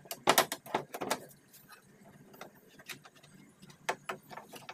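A quick run of sharp metallic clicks and knocks in the first second, then a few scattered single clicks, from tools and metal parts being handled while a power window regulator and its motor are taken apart.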